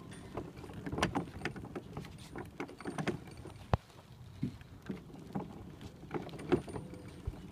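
Red plastic wagon rattling as it is pulled over asphalt, its wheels rolling with a run of irregular clicks and knocks.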